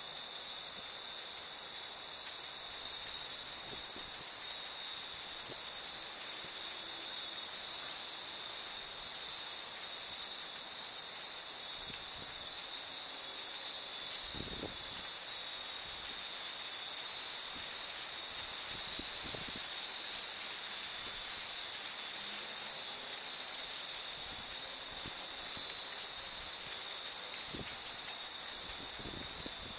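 Dense chorus of insects, a steady high-pitched shrilling that never lets up, with a few faint low thuds underneath.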